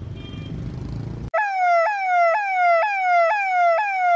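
Low street-traffic rumble, cut off about a second in by an emergency-vehicle siren. The siren is a tone that falls in pitch and jumps back up, about two cycles a second.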